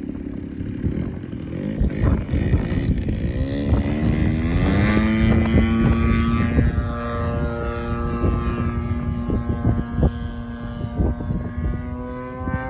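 Radio-controlled aerobatic plane's engine and propeller throttling up for takeoff over a steady low rumble. The pitch sweeps sharply up a few seconds in, then holds steady at high power as the plane climbs away, edging a little higher near the end.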